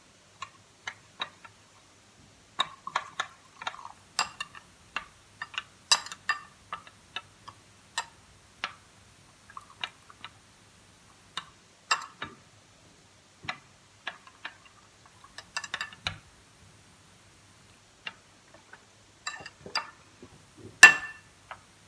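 Metal spoon clinking against a glass tumbler while stirring chia seeds and milk: irregular sharp clinks, several a second in places, with the loudest clink near the end.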